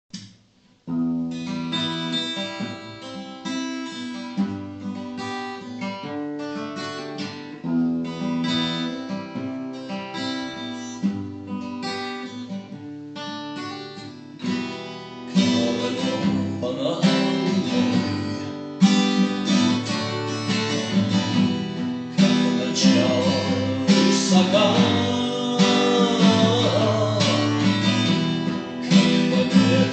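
Instrumental music led by an acoustic guitar, growing fuller and louder about fifteen seconds in.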